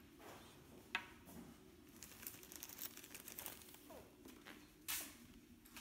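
Faint room tone with a steady low hum and scattered small clicks and rustles: a sharp click about a second in, and a louder knock near the end.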